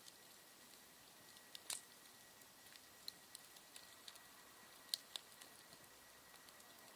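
Campfire wood crackling: faint, irregular pops and snaps over a low hiss, the sharpest about two seconds in and again near five seconds.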